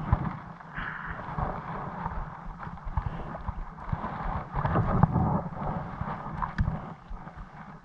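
Wind buffeting the microphone as a low, uneven rumble, with scattered small knocks and clicks.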